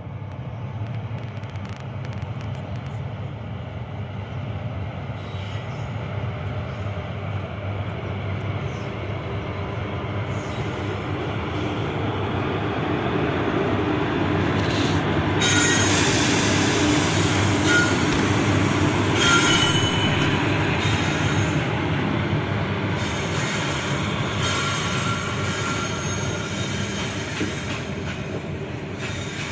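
Goods train hauled by two electric locomotives passing close by, its rumble growing louder until the locomotives go past about halfway through, with high-pitched wheel squeal at the loudest point. The covered goods wagons then keep rolling past as the sound slowly eases.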